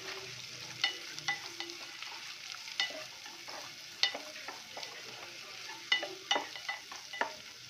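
Chopped onion sizzling as it fries in hot oil with a tempering of mustard seeds, cumin, curry leaves and garlic. A metal spoon stirs it, scraping and clinking against the pot several times.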